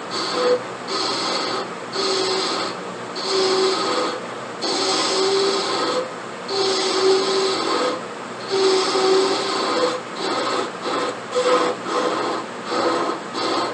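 A hand file or rasp worked back and forth on briar wood in even strokes, about one a second, quickening into shorter strokes near the end.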